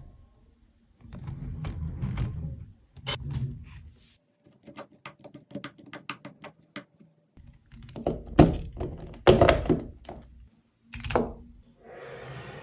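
Plastic clicks, rattles and knocks of a LEGO Technic model being handled, in irregular clusters with the loudest knocks a little past the middle.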